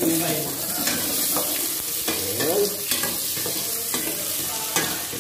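Sliced onion and tomato sizzling in a stainless steel pot as a metal spoon stirs them. The spoon clinks and scrapes against the pot several times over the steady sizzle.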